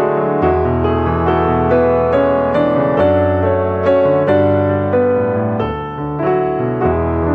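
Background piano music: a melody of single notes moving every half second or so over held bass notes.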